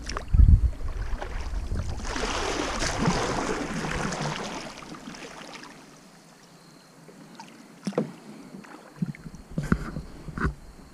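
Plastic sit-in kayak being paddled: a low thump on the hull about half a second in, then a few seconds of paddle splashing in the water, then a few short light knocks near the end.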